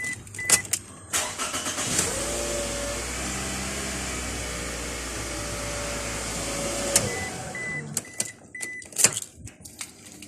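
An electric motor in a Toyota Alphard spins up, runs steadily for about five seconds and winds down. Two short high beeps come before it, and about four more short beeps and a few clicks follow it.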